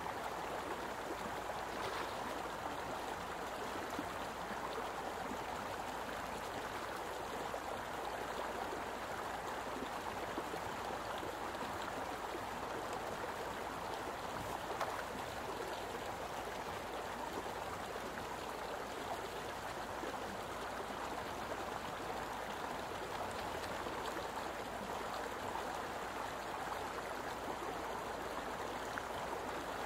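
A steady rush of flowing water, even and unbroken.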